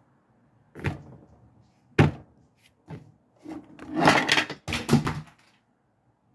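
A series of knocks and thuds about a second apart, then a longer stretch of clattering and rummaging about three and a half seconds in, like cupboard doors and objects being handled.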